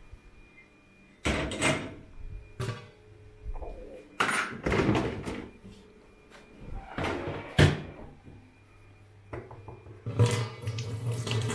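Kitchen cupboard doors and drawers being opened and shut, with several separate knocks and clatters and a busier run of clattering near the end.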